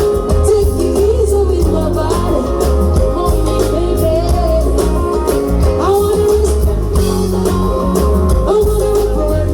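Loud music with singing over a heavy bass beat and guitar.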